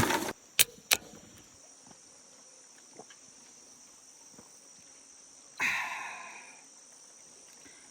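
Steady high-pitched chorus of forest insects, crickets or cicadas. A short burst of noise ends just after the start and is followed by two sharp clicks. About five and a half seconds in, a louder rasping sound fades out over about a second.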